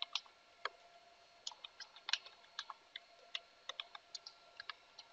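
Computer keyboard keys being typed, about twenty faint, irregular keystrokes with short pauses between small runs, as a password is entered.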